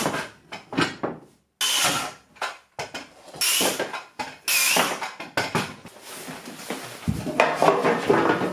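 Tool noise from framing a wooden stud wall: four or five short, sharp bursts, each about half a second to a second long, with a rougher stretch near the end.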